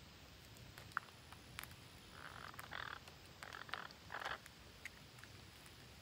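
Faint sounds from parakeets feeding among shrub leaves: a couple of light clicks about a second in, then four short scratchy sounds in quick succession in the middle.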